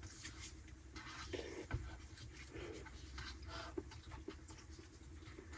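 Faint steady hum of a diesel heater running, with light rustling and scratching over it.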